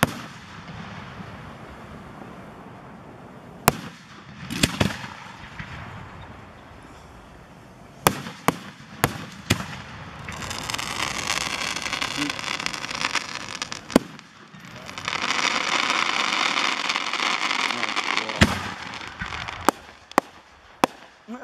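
Aerial firework shells bursting: a series of sharp bangs, some single and some in quick runs of two or three, with two long stretches of dense crackling in the middle of the display.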